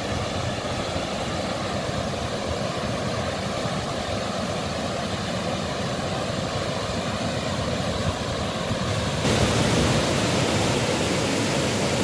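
Waterfall pouring, a steady rush of falling water running full, which is put down to heavy rain up in the headwaters. About nine seconds in it becomes louder and hissier, heard from close beside the falls.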